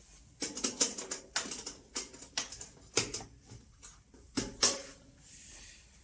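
Irregular clicks and knocks of hands handling a wet-and-dry vacuum cleaner and its parts, stopping about a second before the end; the vacuum's motor is not running.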